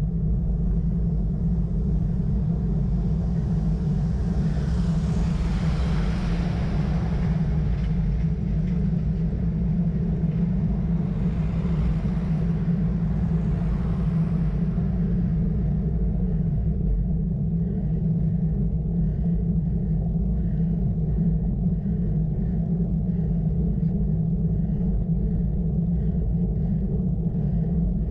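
Steady wind rumble buffeting the microphone of a camera carried on a road bike while riding. Partway through, a louder hiss swells and fades twice.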